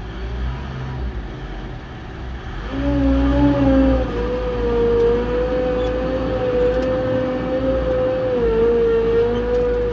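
Off-road vehicle engine running, joined about three seconds in by a loud steady whine that dips slightly in pitch a couple of times.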